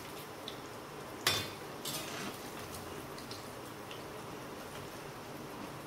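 Paneer cubes frying in hot oil in a kadhai with a steady sizzle, while a metal slotted spoon stirs them and clanks against the pan twice, about one and two seconds in, the first clank the louder.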